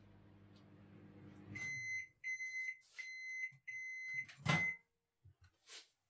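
1000-watt microwave oven humming, then the hum dies away and the end-of-cycle timer beeps five times at one high pitch, the first cooking stage done. A loud clunk comes with the last beep.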